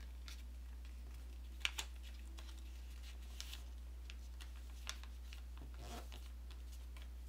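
Faint rustling and light taps of origami paper being folded and creased by hand, with a few sharper clicks about a second and a half in and again near five seconds. A steady low hum runs underneath.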